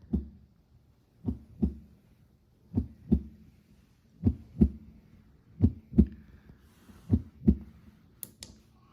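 Heartbeat sound mode played by a Zealot Z6 white noise machine: a recorded heartbeat of paired low lub-dub thumps, repeating about every one and a half seconds, the womb-like sound meant to soothe a baby.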